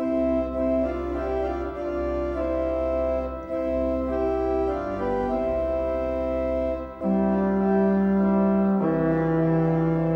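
Church organ playing slow sustained chords over a low pedal bass, the harmony shifting every second or two and swelling louder about seven seconds in.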